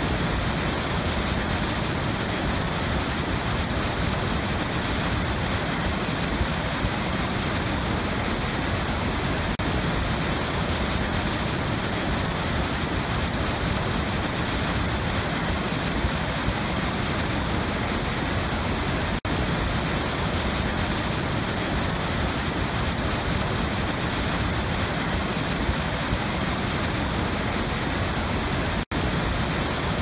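Steady rushing of a large waterfall, heavy white water pouring over a rocky ledge, with two momentary dropouts, about two-thirds through and near the end.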